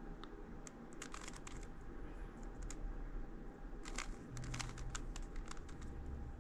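Plastic Rubik's Cube layers being turned by hand: quick runs of light clicks and clacks in bursts, about a second in, around four seconds in, and again near the end.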